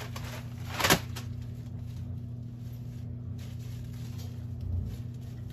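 Clothing being handled as a white knit dress is picked up and unfolded: one short loud rustle about a second in, then quieter handling noise and a soft low thump near the end, over a steady low hum.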